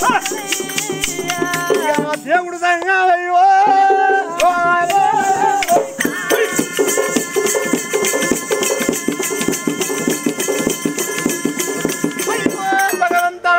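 Oggu katha folk music: a sung melody over the steady jingle of dancers' ankle bells and small cymbals. About six seconds in the melody settles into one long held note, which breaks off near the end.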